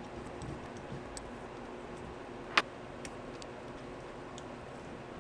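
Scattered small metallic clicks of a 3mm Allen key being fitted into and turning socket-head bolts, with one louder sharp click about two and a half seconds in.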